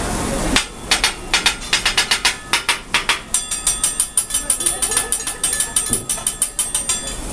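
A teppanyaki chef's steel spatulas tapping and clacking rapidly against each other and the griddle. It is a fast run of sharp metallic clicks with a slight ring, beginning about half a second in.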